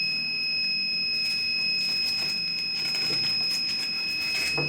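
A steady high-pitched whine with one overtone, heard throughout. From about a second in it is joined by irregular rustling and scratching handling noises, as the blood pressure cuff is fitted on the arm.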